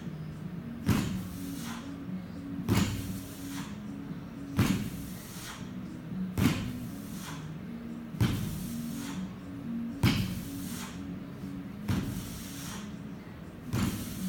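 90 kg barbell with rubber bumper plates being lowered to the floor mat on each deadlift rep, a thud about every two seconds with a lighter knock of the bar between strikes.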